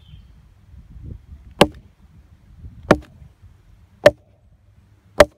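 Camp axe chopping into a short round of hard, seasoned wood stood on a log: four sharp blows, a little over a second apart.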